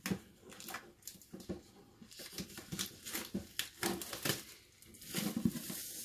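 Plastic shrink-wrap film crinkling and tearing as it is peeled off a cardboard box, in quick irregular crackles.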